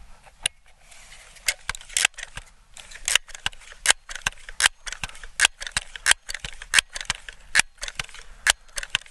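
Crosman 1322 multi-pump pneumatic .22 pellet pistol being pumped up: a regular series of sharp clicks, about one every three-quarters of a second, as the pump lever is swung open and shut stroke after stroke. The pump is new out of the box and still a little crunchy.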